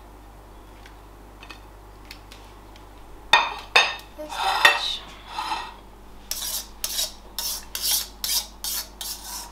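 Kitchenware clatter: two sharp metal knocks about three seconds in, then mixed vegetables tipped out of a stainless steel mesh strainer onto a plate, the strainer worked in a regular run of quick rasping strokes about two or three a second.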